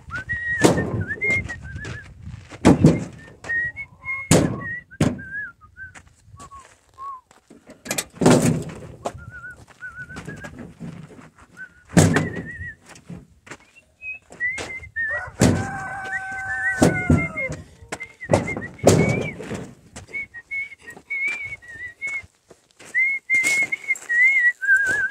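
Someone whistling a wandering tune, broken by several knocks and thunks as a canvas bag is handled at a pickup truck's cab and its door is shut. A rooster crows once about halfway through, a held call that drops at the end.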